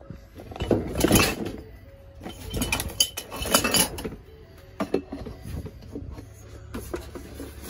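Junk being shifted by hand in a dumpster: wooden boards, cardboard and plastic items knocking and clinking against each other in three bursts of clatter.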